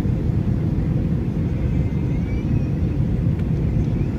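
Airbus A321 on final approach, heard from inside the cabin: a steady low rumble of its engines and the airflow past the fuselage.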